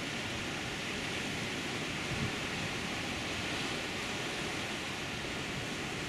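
Sea surf breaking over rocks, a steady rushing wash with no single crash standing out.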